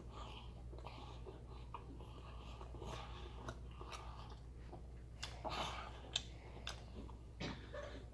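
Close-miked chewing of a soft pulled pork and coleslaw sandwich: wet mouth smacks and small clicks, with a few louder ones in the second half, over a faint steady low hum.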